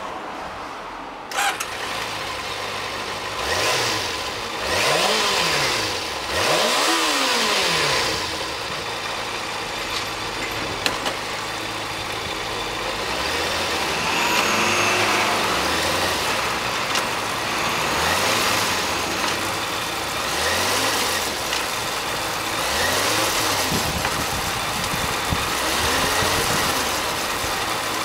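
Kawasaki ZZR400's inline-four engine catching about a second in, then idling with a series of throttle blips, each rising and falling in pitch. It is a running check on a bike the shop calls road-ready.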